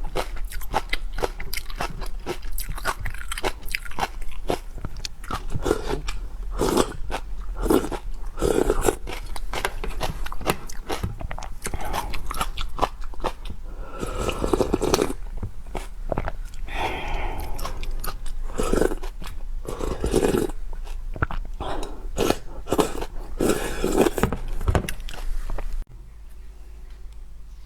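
Close-miked eating of seafood: a person biting, crunching and chewing, with many sharp crackles. The sound cuts off suddenly near the end.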